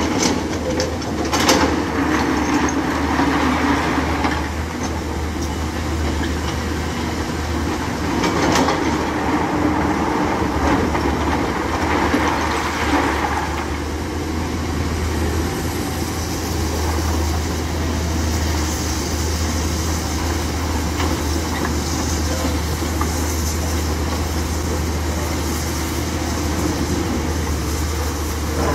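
Hyundai 210-class crawler excavator's diesel engine running steadily, with a low constant hum and several swells in loudness as the arm works. A few sharp knocks come in the first couple of seconds as the bucket works the crushed rock.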